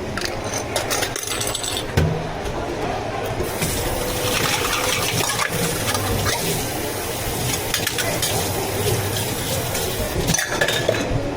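Drink-making sounds at a bubble tea counter: light clinks and knocks of cups and utensils, a sharp knock about two seconds in, and a few seconds of liquid pouring starting about three and a half seconds in.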